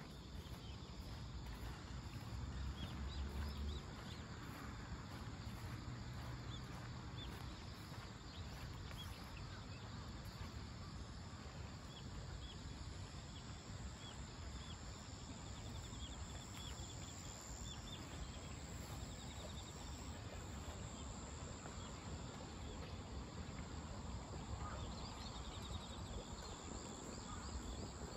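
Insects chirping steadily, with a thin high trill that swells a little twice, over a low outdoor rumble.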